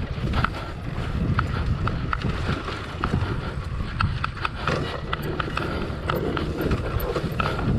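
Single-cylinder four-stroke engine of a Honda XR 250 Tornado trail bike running steadily, with scattered sharp knocks and rattles.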